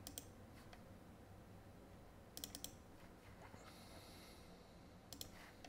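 Faint computer mouse clicks in quick clusters: a double click at the start, three or four clicks about two and a half seconds in, and another double click near the end, over near-silent room tone.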